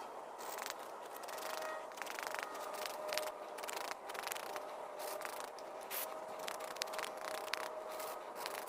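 Wire brush scrubbing a rusty diesel fuel injector, an irregular run of short scraping strokes as rust and grime are cleaned off.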